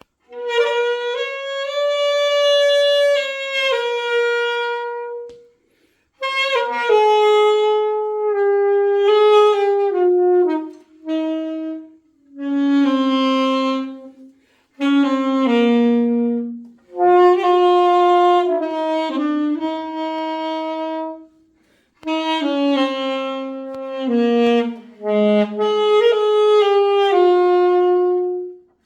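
Solo saxophone playing a slow, lyrical melody in phrases of held and moving notes, with several short breaks between the phrases.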